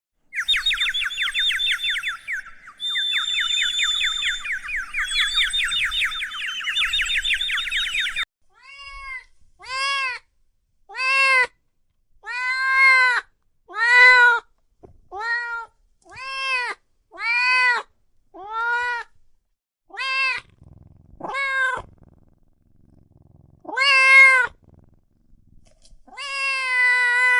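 A cat meowing over and over, a dozen or so meows each rising and falling in pitch, roughly one a second. This follows about eight seconds of rapid, high-pitched chattering.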